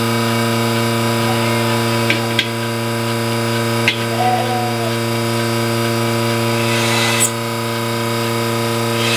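Portable bucket milking machine's vacuum pump running with a steady hum while the teat cups are put on a cow, with a few clicks and a short hiss of air about seven seconds in.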